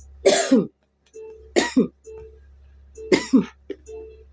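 A person coughing: four short, harsh coughs about a second and a half apart, with a faint repeating tone between them.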